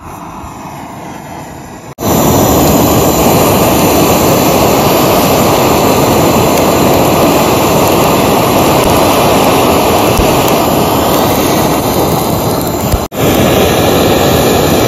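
Handheld gas flame gun firing into lumps of charcoal in a grill to light them: a loud, steady rushing hiss that starts about two seconds in and breaks off for a moment near the end.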